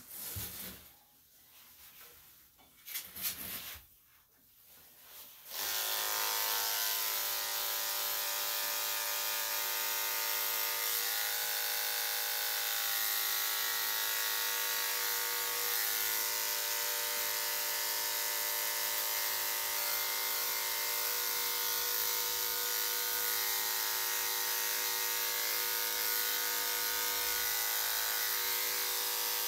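Electric dog-grooming clippers fitted with a number 7 blade switch on about five and a half seconds in and run with a steady hum. Before that there are only a few faint short sounds.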